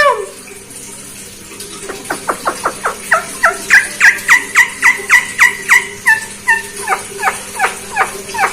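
Javan myna (jalak kebo) giving a rapid string of short, falling, yelping calls, about three a second, starting about two seconds in. The calls come just after the bird's mimicked 'Assalamualaikum'.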